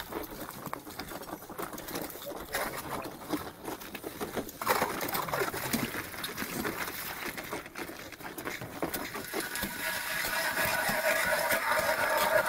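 A mirror carp thrashing in a hole in the ice as it is hand-landed, water splashing and sloshing irregularly, with a sudden louder splash about five seconds in.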